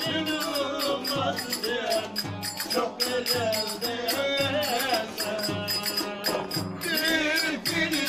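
Live Turkish folk music from a small group of musicians: a wavering melody over a steady beat of clicking percussion.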